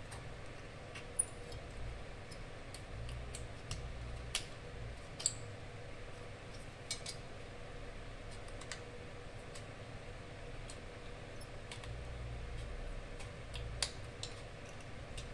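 Scattered, irregular light clicks and ticks from an aluminum dental stock tray being handled and worked by hand, over a faint steady hum.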